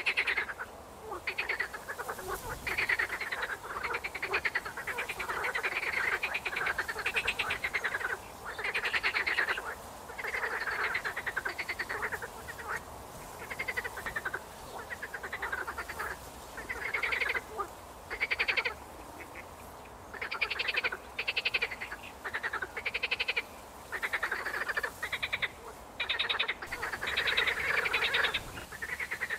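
A chorus of frogs croaking: many overlapping calls, each a quick train of rapid pulses, following one another with only short pauses.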